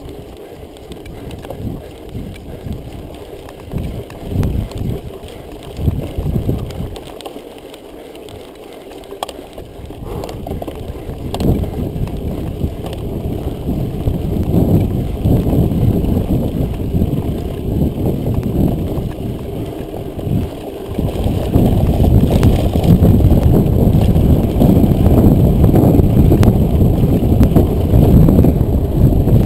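Wind rushing over the microphone of a camera on a mountain bike riding a dirt track, mixed with tyre rumble and a few sharp clicks. The rush grows louder about two-thirds of the way through.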